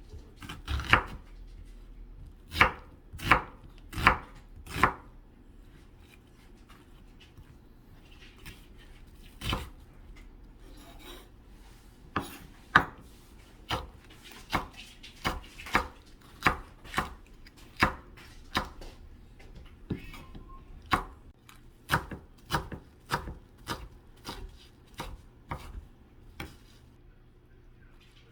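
Knife chopping on a cutting board: a quick run of sharp knocks, a pause, then steady strokes about one or two a second.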